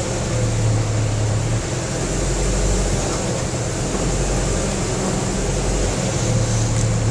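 Steady mechanical drone of an engine or motor running, with a low hum that swells twice, about half a second in and again near the end.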